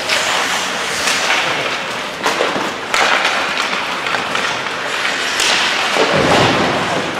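Ice hockey play on the rink: skate blades scraping the ice under a steady hiss, with several sharp stick and puck clacks and a heavy thud a little after six seconds in.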